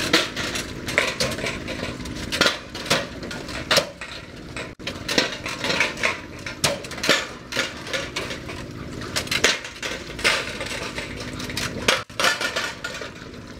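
Irregular metallic clanking and clinking from a river-current paddle wheel with sheet-metal blades on steel arms and its chain and gear drive as it turns in the current, over a steady low hum.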